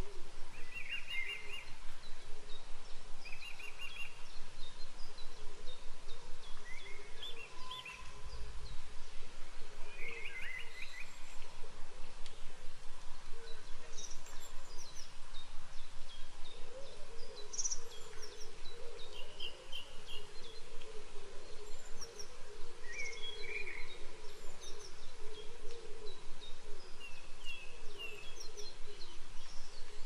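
Wild birds singing: several different birds chirping and trilling over a steady background hiss, with a lower warbling call running through the second half.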